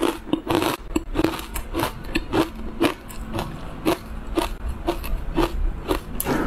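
Close-miked chewing of a crunchy bite of green-powder-coated food: crisp crunches coming about twice a second.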